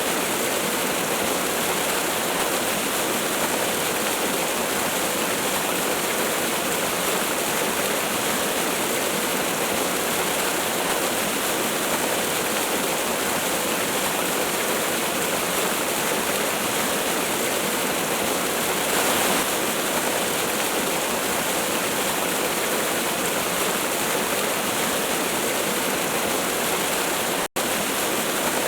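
Waterfall rushing, a steady unbroken roar of falling water, with a split-second gap near the end.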